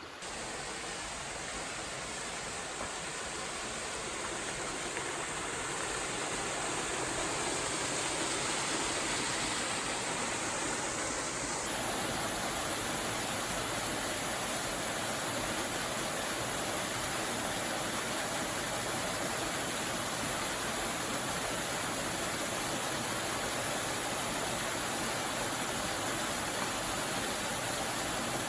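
Steady rush of falling and running water from Darwin Falls, a small desert waterfall and its stream, growing a little louder over the first several seconds and then holding even.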